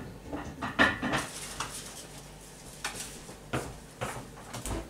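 Crockery and cutlery clinking as soup is served: a handful of scattered light knocks and clinks.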